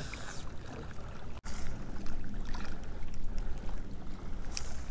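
Water lapping and splashing against a plastic kayak hull over a steady low rumble, with a few light clicks from handling a baitcasting reel.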